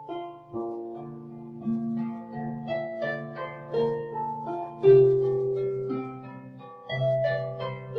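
Slow, gentle harp music: single plucked notes and chords that ring on, with deeper bass chords about five seconds in and again near the end.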